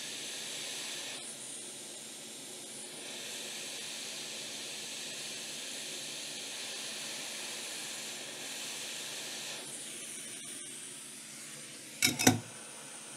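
Hot air rework station blowing a steady hiss while a MOSFET is soldered onto a laptop motherboard. The hiss drops away about ten seconds in. Near the end come two sharp knocks in quick succession.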